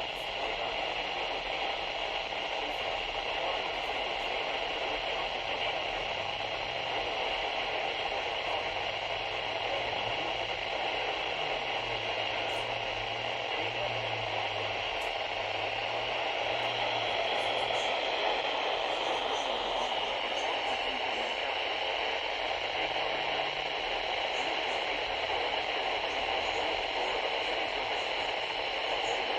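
Steady radio static hiss from a receiver tuned to a weak, distant signal, with no voice coming through. A faint low tone comes and goes under the hiss through the middle.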